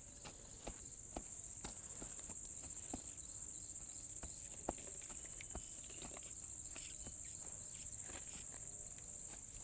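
Insects droning with one steady, high-pitched note, with scattered light clicks and taps over it.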